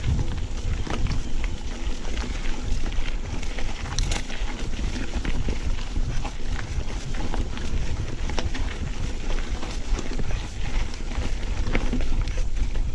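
Mountain bike riding over a dirt trail, heard through an action camera: a steady low rumble of wind and ground noise with frequent rattles and knocks from the bike bouncing over bumps.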